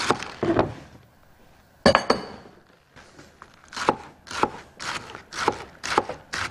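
Kitchen knife chopping green onion leaves on a white cutting board. A few quick strokes, a pause, then a single clink with a brief ring about two seconds in, then steady chopping at about two strokes a second.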